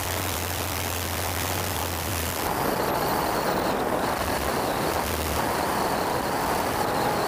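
Steady rush of air over a camera riding on a large model jet in flight, with a faint steady high whine from its four Wren Super Sport micro gas turbines; the rush grows louder about two and a half seconds in.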